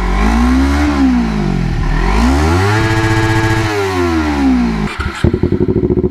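Kawasaki Ninja 250's parallel-twin engine revved twice, the second rev held for about a second before falling back, then settling to a steadier run near the end.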